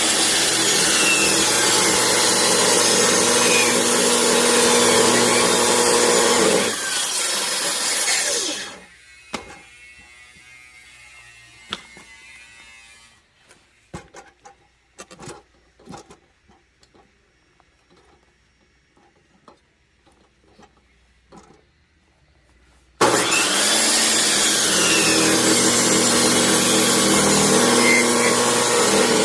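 Chainsaw cutting through oak logs. It runs loud and steady, dies away about eight seconds in, and leaves a quiet stretch with scattered knocks of wood. It cuts in again sharply about 23 seconds in.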